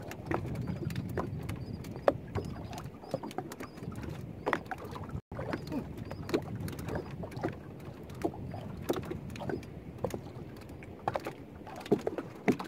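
Small waves lapping and slapping against the hull of a drifting wooden boat, with many short knocks and splashes.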